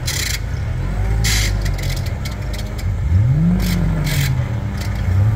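Rock crawler buggy's engine running at low revs, blipped up and back down about three seconds in. Several short hissy rasps sound over it.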